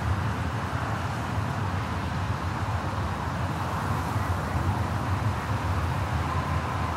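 Steady low rumble of distant road traffic carried across open meadowland, with no single event standing out.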